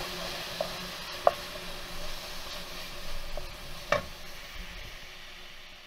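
Diced vegetables, bacon and tomato puree sizzling in a frying pan as the puree cooks through, with a wooden spoon stirring and knocking against the pan about four times, the loudest knock about four seconds in. The sizzle fades away near the end.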